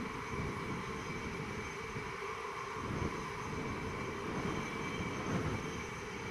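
Empty intermodal container flat wagons rolling past on the main line: a steady running noise of wheels on rail and bogies.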